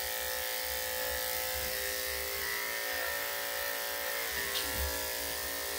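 Corded electric dog-grooming clippers running steadily with a constant even hum as they shave the coat on a small dog's leg.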